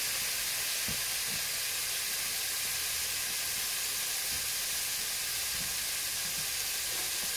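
Steak searing in hot butter in a pan: a steady sizzle.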